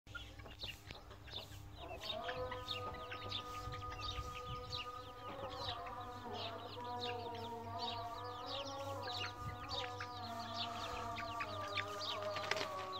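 Young chickens peeping and clucking as they forage, many short high calls overlapping. Underneath, from about two seconds in, is a steady held tone that changes pitch now and then.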